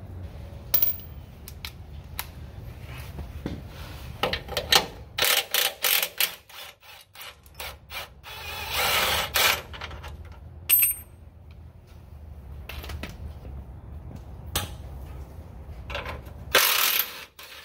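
A cordless power tool runs in several short bursts and two longer ones, around the middle and near the end, spinning the nuts off the front lower control arm's cam bolts. Metal clinks and knocks from the socket, bolts and parts fall between the runs.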